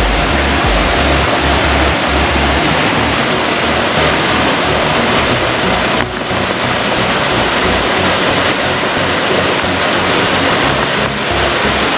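Loud, steady rush of a waterfall cascading through a narrow gorge. Stepped electronic-music bass notes sit faintly underneath, plainest in the first few seconds.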